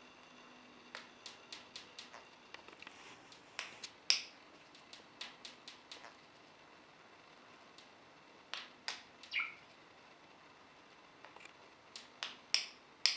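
Budgerigar making runs of sharp clicking sounds with a few short, high chirps mixed in; the loudest chirp comes about four seconds in.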